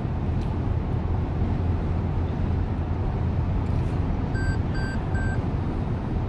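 Steady road and engine noise inside a car cruising on a highway, a low rumble. About four and a half seconds in, three short high electronic beeps in quick succession.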